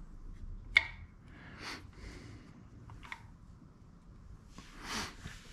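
Timing chain and cam sprocket being handled on an LS engine's front end: one sharp click about a second in, then a few soft rustling noises and a brief hiss near the end.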